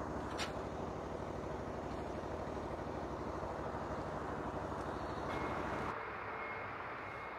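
Tracked spider lift running, its power unit and hydraulics driving the boom with the basket raised: a steady machine drone. A thin high whine joins about five seconds in, and the deep part of the drone drops away about six seconds in.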